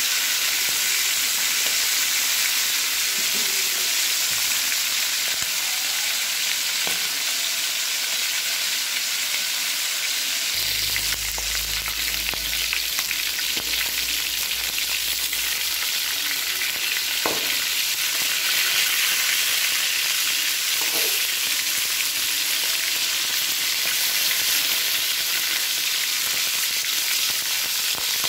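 Chicken pieces sizzling steadily in hot oil in a metal wok as they brown, with a few light clinks of a metal slotted spoon against the pan.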